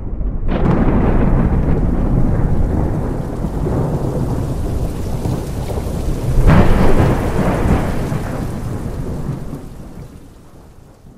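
Thunderstorm: heavy rain with a low, continuous rumble of thunder. A louder thunderclap comes about six and a half seconds in, then the storm fades out toward the end.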